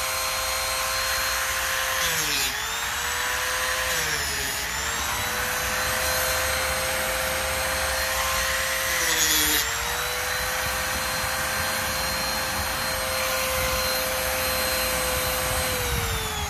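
Handheld power cutting tool running at high speed, cutting into the composite toe of a work boot. Its whine dips in pitch three times as it bites, then winds down near the end.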